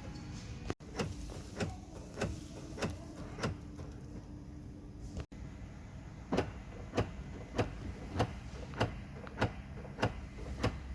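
Mazda central-locking door-lock actuators clacking lock and unlock over and over by themselves, about one clack every 0.6 s. They stop for about three seconds midway, then start again. This self-cycling is the symptom of a malfunctioning driver's door latch.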